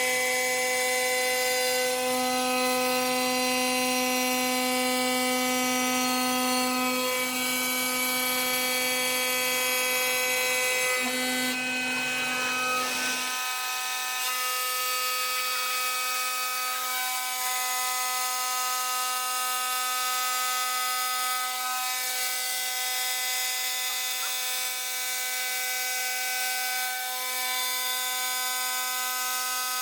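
A 5-axis CNC stone bridge saw running with a steady, high mechanical whine made of several pitched tones. About thirteen seconds in, the low rumble under it stops suddenly, and the whine carries on slightly quieter.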